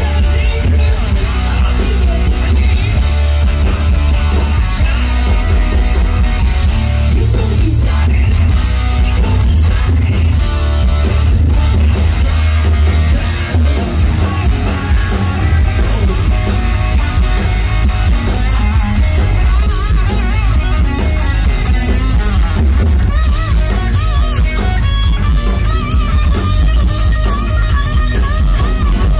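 Live rock band playing loud through a PA: hollow-body electric guitar, electric bass and drum kit, with guitar string bends in the last third.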